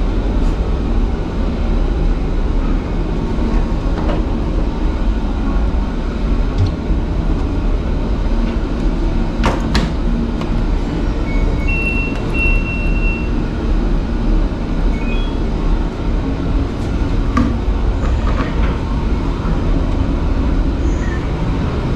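Steady low rumble of a cargo ship's machinery and ventilation, with a few sharp clicks as a front-loading washer-dryer's door and drum are handled, and a short run of electronic beeps from the LG Tromm washer-dryer's control panel about halfway through.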